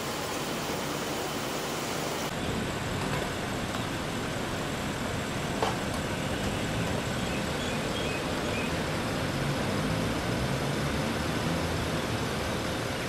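Outdoor street ambience: a steady hum of road traffic. The background shifts abruptly about two seconds in, and a single sharp knock stands out about halfway through.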